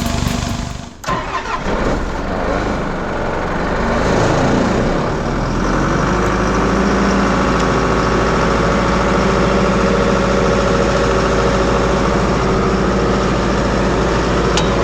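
Diesel engine of a Doosan 7/71 portable air compressor starting about a second in, running unevenly at first, then settling from about five seconds into a steady, even run.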